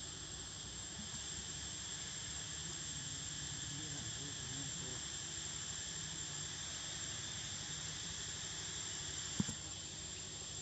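Steady chorus of forest insects, crickets or cicadas, with a constant high tone over it. A single sharp click about nine seconds in.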